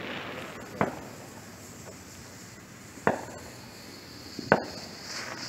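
Fireworks going off as three separate sharp bangs, spread unevenly over a few seconds.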